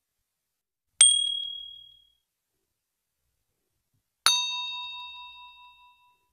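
Two ding sound effects about three seconds apart. The first, about a second in, is a short bright single-pitched ding. The second is a richer bell-like ding with several tones that rings out for nearly two seconds.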